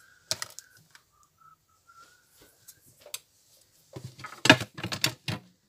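Craft supplies being handled on a table: a single click, then a quick run of knocks and rattles near the end as things are moved about. A faint, thin wavering whistle runs through the first half.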